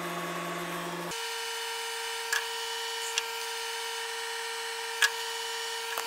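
Steady hum with three short clicks spread through it, as the crankshaft of a Cadillac 472 V8 is turned slowly by hand with a breaker bar to line up the timing-chain marks.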